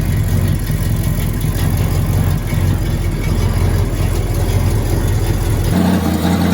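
Big-block V8 of a 1979 El Caballero idling steadily, its exhaust leaking at the header collector and at poorly welded joints. The engine's tone changes abruptly near the end.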